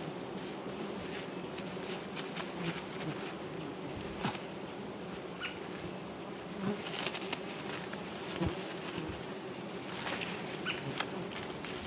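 A swarm of wild honeybees buzzing steadily at close range, disturbed as their comb is cut away, with scattered clicks and rustles of handling.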